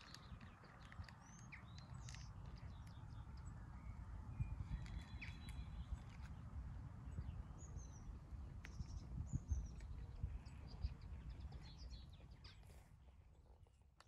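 Outdoor countryside ambience: small birds chirping and calling now and then over a low, gusty rumble. It fades out near the end.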